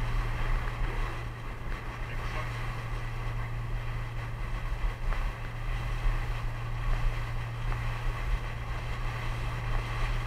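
Boat motor running at a steady speed, a constant low drone, with water rushing past the hull and wind buffeting the microphone.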